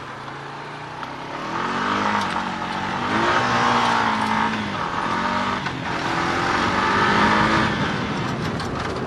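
Four-wheeler (ATV) engine running low, then revving up about a second and a half in and accelerating hard. Its pitch rises and falls several times as it pulls.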